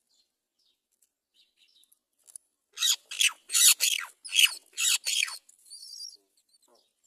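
Great mynas at the nest calling: a run of about seven loud, harsh calls in quick succession, starting nearly three seconds in, with fainter high squeaks before and after.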